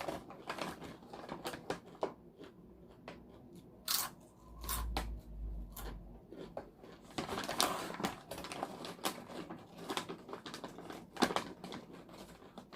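Crisp corn and potato chips crunching as they are bitten and chewed, with many sharp crackles coming in irregular clusters.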